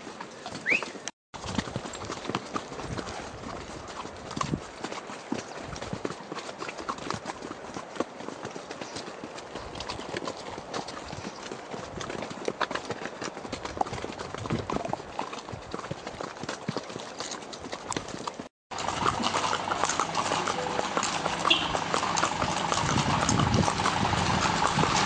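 Horses walking, their hooves clip-clopping in an uneven rhythm, with the sound cutting out briefly twice. In the last few seconds the hoofbeats are louder, on a paved street, over the steady hum of an engine running.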